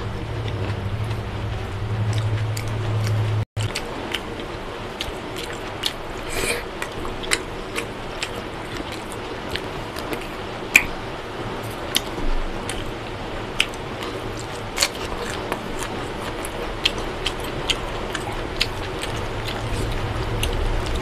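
Close-up mouth sounds of a person chewing mutton biryani eaten by hand: many short wet clicks and smacks of lips and tongue, with the squish of fingers working the rice. A low hum runs under the first few seconds and comes back near the end.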